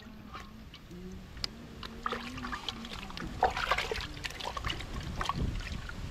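Water splashing and trickling as a plucked chicken is washed, with irregular splashes that grow busier after the first few seconds.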